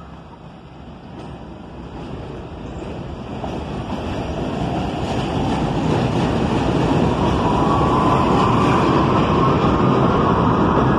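Subway train noise building steadily from a low rumble to a loud, steady rush of wheels on rail, with a whine joining in over the last few seconds.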